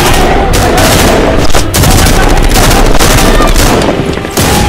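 Rapid gunfire in a film soundtrack, shot after shot in quick succession, as from automatic weapons.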